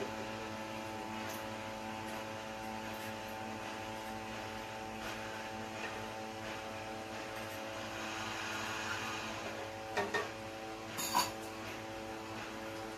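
Steady electrical hum of several tones, with a few short clinks of kitchen utensils near the end: a metal spoon and a shot glass handled against a blender jar and a metal tray.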